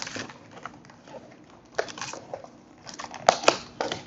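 Foil card booster pack wrapper crinkling and tearing as it is struggled open, in a series of irregular sharp crackles that grow loudest about three seconds in.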